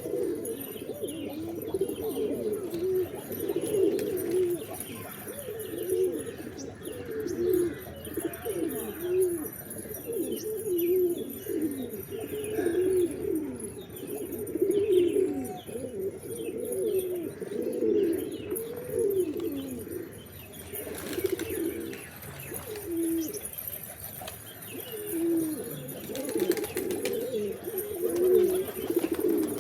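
Several pigeons cooing continuously, their low calls overlapping, with a few faint higher chirps now and then.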